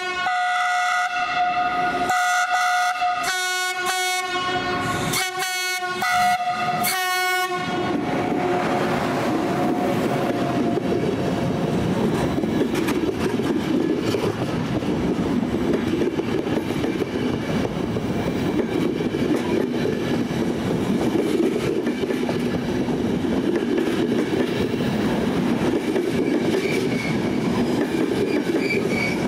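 Electric-hauled Intercity passenger train sounding its two-tone horn in a series of short blasts over the first seven seconds, then passing at speed: a steady loud rush of wheels on rail with clattering over the rail joints as the coaches go by.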